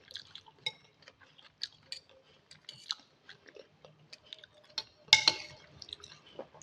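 Close-miked chewing of a mouthful of instant noodle soup, with wet mouth clicks and smacks scattered throughout. One louder, noisier moment comes about five seconds in.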